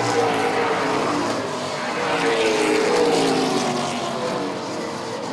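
A pack of NASCAR late model stock cars racing at speed, several V8 engines heard at once, their pitches sliding down in places as cars pass.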